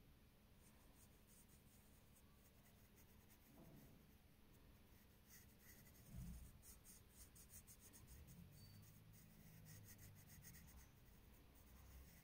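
Faint scratching of a dark pencil on paper: quick, repeated back-and-forth shading strokes, coming thicker and faster from about halfway through.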